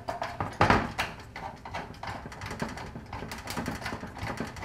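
Hand screwdriver snugging up a toggle bolt's screw through a fluorescent light fixture's sheet-metal housing: a run of irregular small clicks and scrapes, with one louder knock about a second in.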